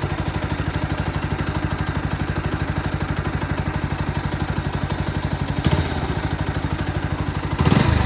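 Bajaj Pulsar NS125's single-cylinder engine idling with an even, fast pulse, heard close to the engine, with a short louder patch near the end. The owner complains of an extra noise from the engine of this nearly new bike.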